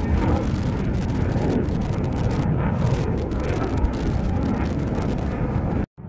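Steady low rumble of a submarine-launched missile's rocket motor as the missile climbs away, cutting off suddenly near the end.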